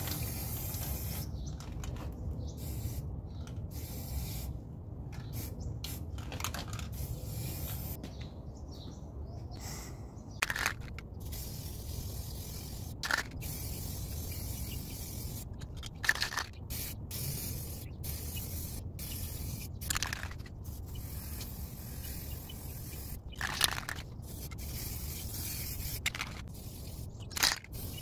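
Aerosol spray paint can sprayed in many short, irregular bursts of hiss, with a longer spray at the start.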